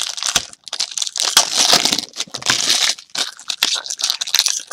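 Sealed trading-card packs being handled and shuffled by hand, their plastic wrappers crinkling and crackling in quick irregular bursts.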